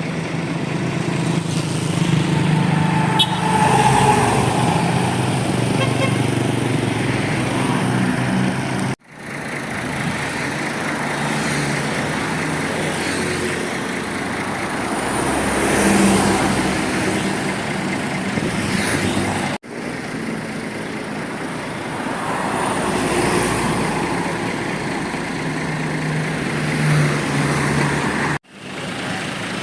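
Tour buses and other road traffic passing close by, engines running under a steady traffic noise. The sound breaks off abruptly three times, about every ten seconds.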